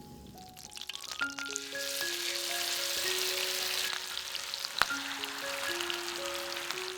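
Food frying in hot oil in a pan, a steady sizzle that swells about a second in and stays strong, with a sharp click just before the five-second mark. Light background music with plucked notes plays throughout.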